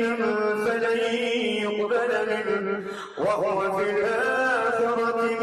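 A man's voice chanting Quranic recitation in the melodic tajweed style, drawing vowels out into long held notes. About three seconds in there is a short breath, then a note slides upward.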